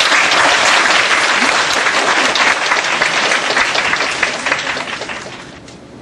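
Audience applauding, loud at first and dying away over the last second or so.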